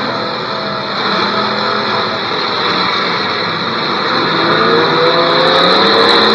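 Several demolition derby cars' engines running and revving at once, some rising in pitch, under a steady high-pitched whine. Sharp clicks come near the end.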